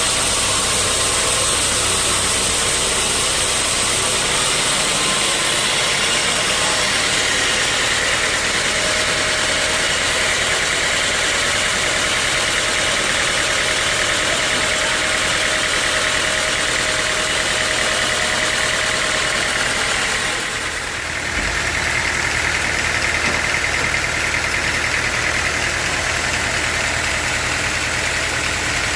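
Sawmill machinery running steadily, the saw and its motor making a loud, continuous mechanical noise. The sound drops briefly about twenty seconds in, then resumes.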